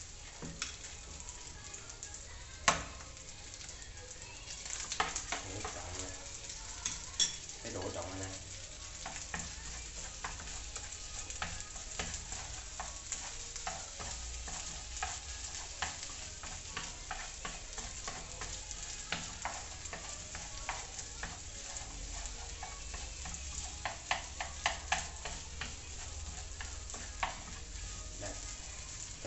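Rice and egg yolk frying in a small nonstick pan: a steady sizzle, with frequent clicks and scrapes of wooden chopsticks stirring against the pan. One sharper knock comes about three seconds in.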